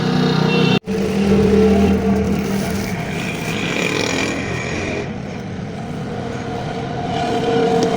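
Lathe machine running, a steady mechanical hum with several held tones; the sound cuts out for an instant just under a second in.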